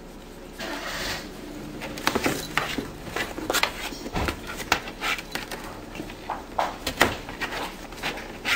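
A cat clawing and biting at a cardboard box: a quick, irregular run of scratches, scrapes and knocks on the cardboard that starts about two seconds in.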